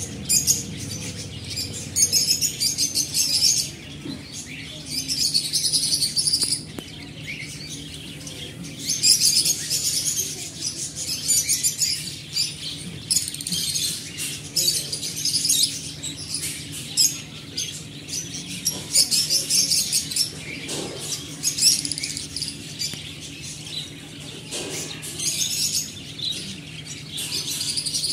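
A flock of caged budgerigars chattering and chirping, in bursts of fast, high warbling every second or two.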